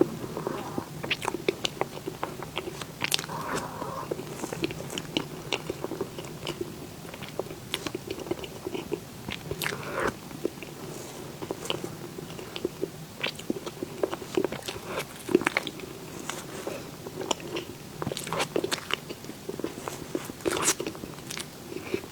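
Close-miked eating: a person biting and chewing dessert, with steady wet mouth noise and many small clicks and crunches throughout.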